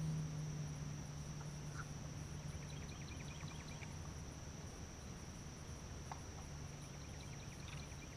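A steady, high-pitched chorus of insects, one unbroken tone, with a low hum that drops away during the first second.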